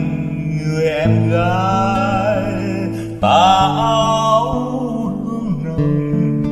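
Acoustic Vietnamese ballad: a voice sings two long phrases with vibrato, about a second in and again past the middle, over plucked acoustic guitar.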